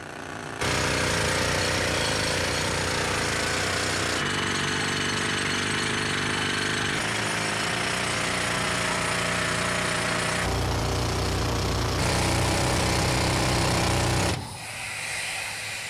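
Heavy pneumatic rock drill hammering continuously into a reinforced concrete column, boring holes for dynamite charges. It cuts out near the end, leaving a quieter hiss.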